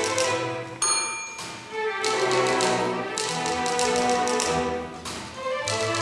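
String orchestra playing, with a manual typewriter as the solo instrument: fast runs of key clicks over the strings. About a second in, the clicks stop and the typewriter's bell rings once.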